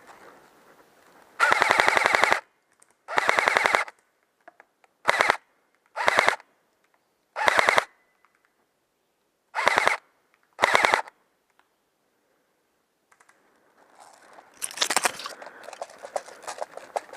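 Automatic airsoft gun firing seven short bursts of rapid, evenly spaced shots, the first two the longest, over about ten seconds. After a pause, rustling footsteps follow near the end.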